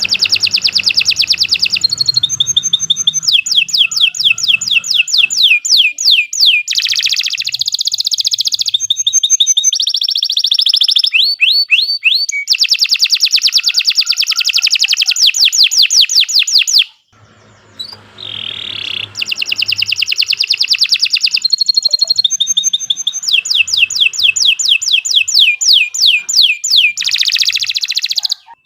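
Domestic canary singing a long, vigorous song of rapid trills and runs of fast repeated high notes, changing from one phrase to the next, breaking off briefly about two-thirds through before going on.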